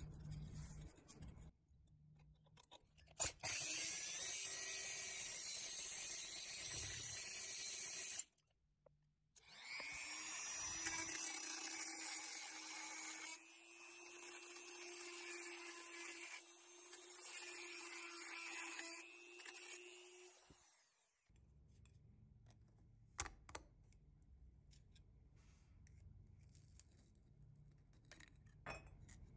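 Handheld rotary tool with a small cutting bit grinding into the head of a steel rivet, running steadily in two stretches of about five and eleven seconds. This is the drilling-out of the rivet that holds the toy's plastic wheel. A few light metal clicks near the end as the rivet is worked loose.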